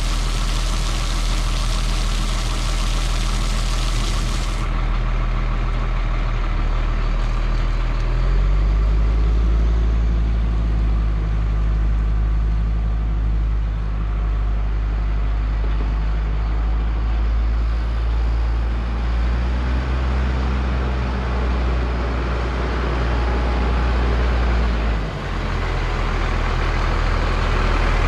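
Diesel engine of a 2000 Freightliner FL70 water truck running, with the hiss of its rear water spray for the first four or five seconds until the spray shuts off. The engine note steps up and grows louder about eight seconds in, holds, then drops suddenly near the end.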